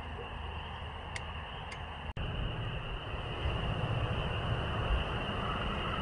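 Spring peepers calling in a dense chorus, a steady high peeping. About two seconds in, a low rumble joins underneath.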